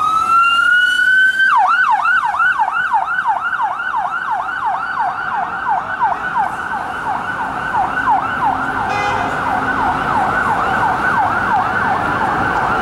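Police van siren winding up in a rising wail, then about a second and a half in switching to a fast yelp, about three to four sweeps a second.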